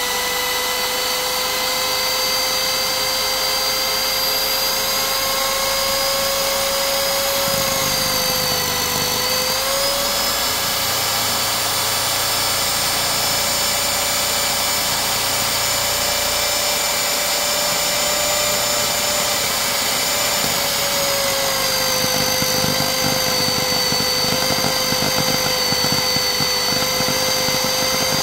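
Electric hand mixer's universal motor running flat out with its beaters whisking cream: a steady, high motor whine that dips briefly in pitch about a third of the way in and settles a little lower later on, growing slightly louder toward the end. The mixer is overvolted, fed about 240 rising to about 345 volts.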